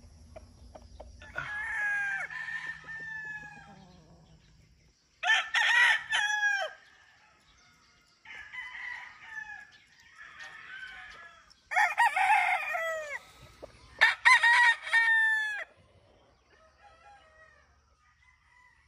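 Several Kelso gamefowl roosters crowing in turn, about five crows, two of them loud and near and the others fainter.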